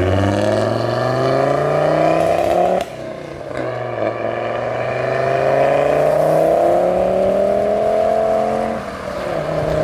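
Turbocharged car engine pulling hard under full acceleration, its pitch rising through one gear, a brief drop at a shift about three seconds in, then a second long rising pull that drops off near the end. It is a run testing whether a refitted boost hose holds under pressure.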